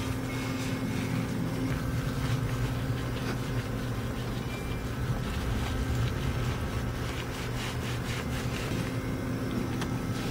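A steady low motor hum runs throughout, with scattered faint clicks and rustles over it.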